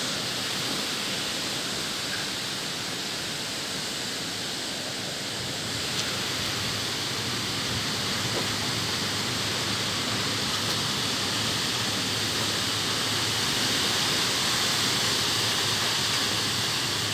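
Steady rushing hiss of a storm, rain and wind through the trees, growing a little louder about six seconds in and again toward the end.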